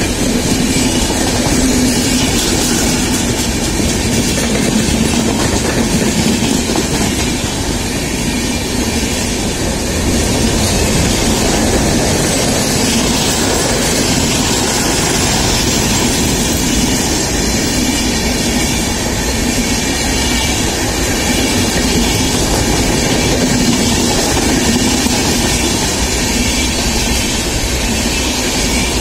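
Indian Railways passenger coaches passing at speed, close by: a loud, steady noise of steel wheels running on the rails that continues unbroken as coach after coach goes by.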